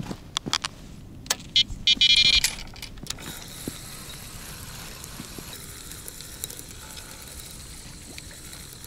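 A quick series of sharp clicks and knocks with a brief burst of rapid ratchet-like clicking about two seconds in, then a faint steady hiss.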